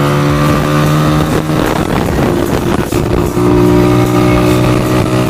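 Vehicle engine running while driving on a road, a steady hum whose note breaks up about two seconds in and settles again a second or so later.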